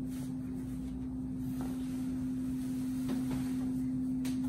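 A steady low hum throughout, with faint rustling of a cotton tablecloth being stretched by its elastic hem over the edge of a table.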